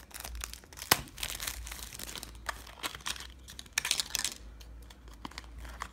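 Clear plastic blister packaging and its cardboard tray crinkling and tearing as a Shopkins Petkins backpack pack is peeled open by hand, with one sharp click about a second in.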